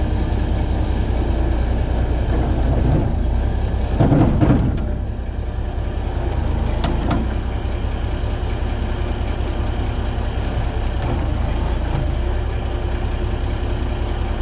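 Komatsu D41A bulldozer's diesel engine running steadily while its rear winch lifts the back of the truck off the ground, with a brief louder surge about four seconds in.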